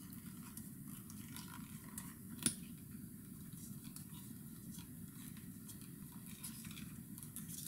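Faint small clicks and rustles of plastic-coated picture-hanging wire being twisted by hand around the main wire, with one sharper click about two and a half seconds in, over a low steady background hum.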